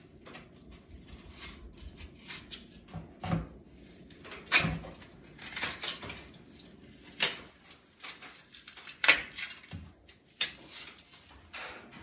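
Scattered knocks and clacks of kitchen handling, a dozen or so sharp hits at irregular intervals with quiet gaps between them, the loudest about three-quarters of the way through.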